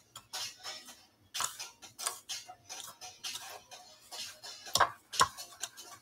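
Irregular light clicks and scrapes of a metal spoon against a bowl, with fingers working in breadcrumbs, as croquettes are dipped in batter and coated; two sharper clicks near the end.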